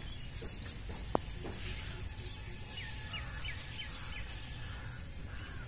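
Rural outdoor ambience: a steady high insect drone of crickets over a low rumble, with a bird giving about five short falling chirps in quick succession near the middle. A single click about a second in.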